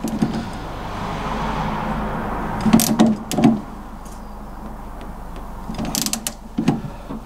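Socket wrench ratcheting on the bolts of an MGB front lever-arm damper, a steady run of ratchet noise for the first couple of seconds, then a few sharp metal clicks and knocks around three and six seconds in as the bolts are done up.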